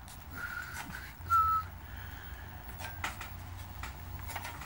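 A person whistles briefly: a faint held note, then a short, louder one. Light clicks of metal parts being handled follow.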